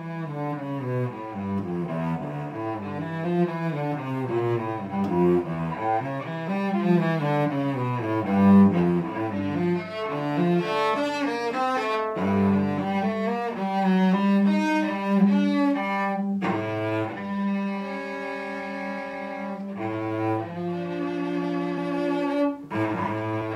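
Solo cello played with the bow: a quick run of moving notes for the first half, then slower, longer held notes with brief breaks between phrases.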